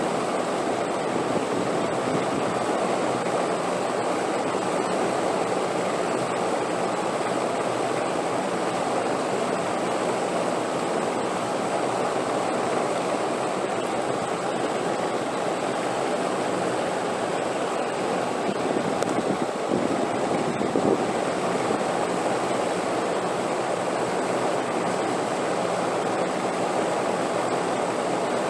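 Steady rushing wind noise for sleep, an even whooshing with no gusts except a brief swell about two-thirds of the way through. A faint, thin high whistle runs underneath.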